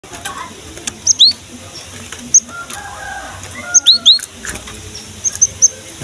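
Cinereous tit (gelatik batu) calling: short, sharp, high chirps that bend downward, coming singly or in quick pairs and threes. The loudest come a little after one second in and around four seconds.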